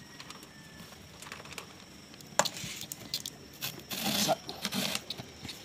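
Plastic hand-crank drum grater being worked and handled while shredding carrots: scattered clicks and clinks, a sharp knock about two and a half seconds in, and a short rattling burst around four seconds in.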